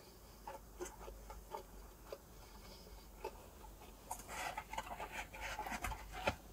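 Close-up chewing of a crispy-shelled birria taco: scattered soft wet mouth clicks, then a denser run of crackly chewing about two-thirds of the way through.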